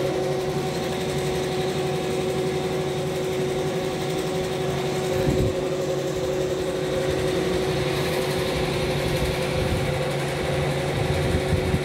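Two-head computerized embroidery machine running steadily, its needles stitching at an even pace over a constant hum. There is a brief low thump about five seconds in.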